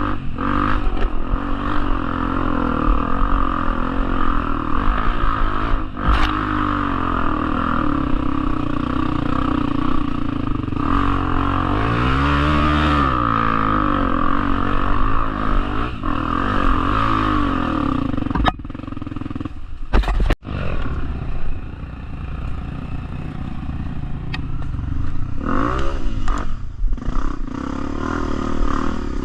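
Off-road motorcycle engine running and revving up and down while riding a rough trail, with clattering and scraping over the ground. The engine note climbs and falls back about twelve seconds in, and dips briefly with a sudden break about twenty seconds in.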